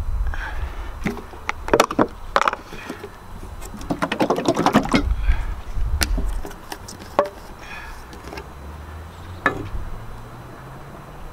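A metal tin of paint stripper being handled and opened, making a run of clicks and knocks, busiest about two seconds in and again around four to five seconds in, with a few single clicks later and a low rumble underneath.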